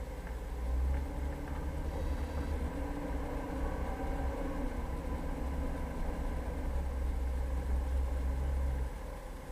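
Jeep Cherokee driving, a steady low engine and drivetrain rumble that eases slightly near the end.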